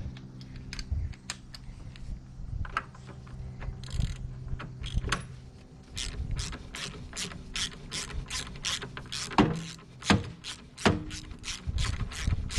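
Hand ratchet clicking as an engine mount bolt is backed out. The clicks are irregular at first, then settle into a steady run of about four a second from about halfway, with a few louder metallic knocks among them.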